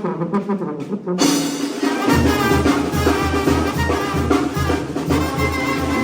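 Banda brass band playing, led by trumpets and trombones. The full band comes in about a second in, and a steady low beat starts about two seconds in.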